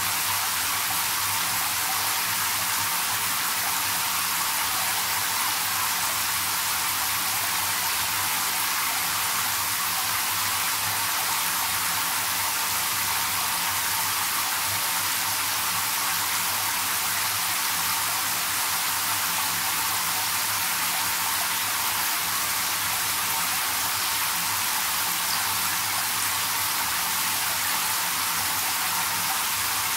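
Shower head spraying a steady stream of water into a partly filled bathtub: a continuous, even hiss of falling water that does not change.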